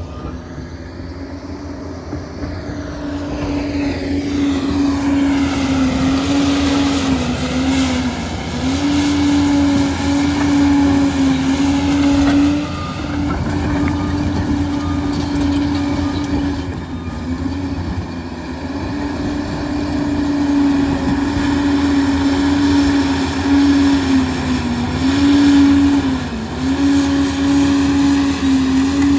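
Diesel engine of a Liebherr 746 crawler dozer running hard at high revs, its steady drone sagging briefly in pitch several times as the blade takes load.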